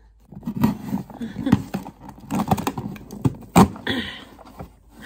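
Packaging being handled and opened: rustling and crinkling with a run of short clicks and knocks, the sharpest about three and a half seconds in.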